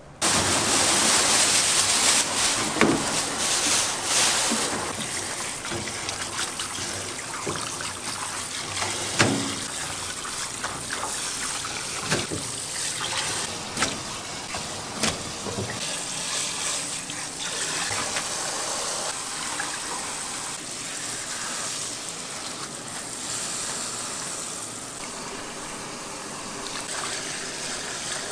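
Water running and splashing steadily, starting abruptly, with a few sharp knocks and clatters over it.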